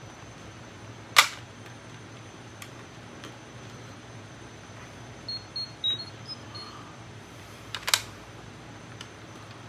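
Sharp clicks from handling a Power Rangers morpher toy: one about a second in and a quick double click near the end, with a run of five short, faint high beeps in between.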